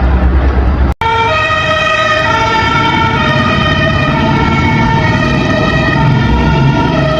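Vehicle engine rumble, cut off abruptly about a second in, then a fire truck's two-tone siren alternating between a high and a low pitch roughly once a second, with the engine rumble beneath it.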